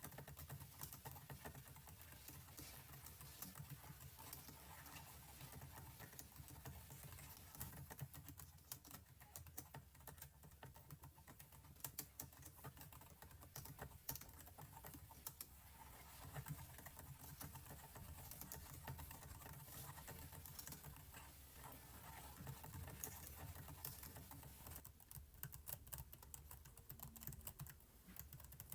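Soft computer keyboard typing: a continuous, irregular patter of quiet key clicks.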